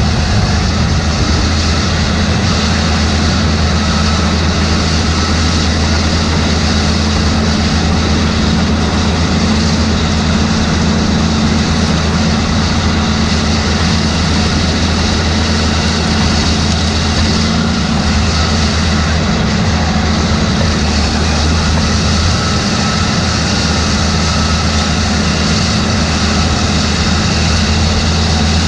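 Farm tractor's diesel engine running steadily under load, a constant low drone with no change in speed.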